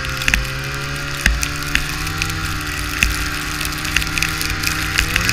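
Snowmobile engine running at a steady throttle, heard from on board, with scattered sharp ticks and rattles on top; the engine pitch starts to rise right at the end.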